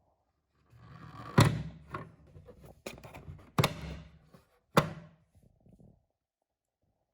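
Handling noise with three sharp knocks or clicks, about a second or two apart, the first the loudest.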